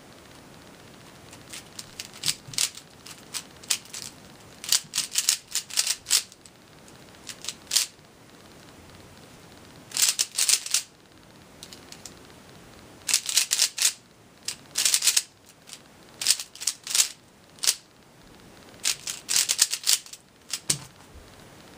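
Zhanchi Silk 3x3 speedcube being turned fast during a timed solve: rapid bursts of plastic clicking and clacking as the layers snap round, broken by short pauses, with a soft thump near the end.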